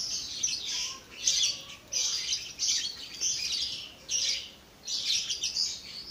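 Birds chirping, really noisy: short bursts of high, rapid chirps repeating about every two-thirds of a second.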